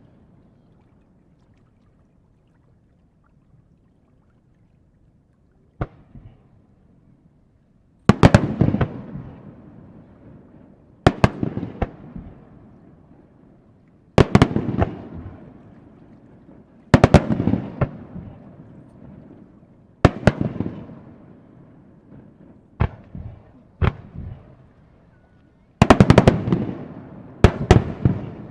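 Aerial fireworks shells bursting: after a few quiet seconds one bang, then clusters of sharp cracks about every three seconds, each followed by a rolling rumble that dies away.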